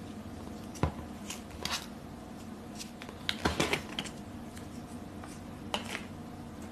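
Cloud slime being squeezed and stretched by hand, giving scattered crackles and squishes over a steady background hiss.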